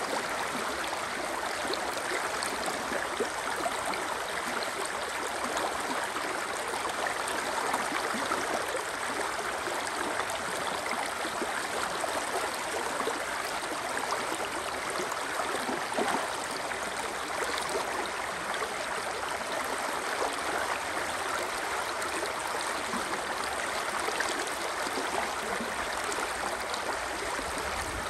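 The Spree river rushing: a steady, even water noise with no breaks.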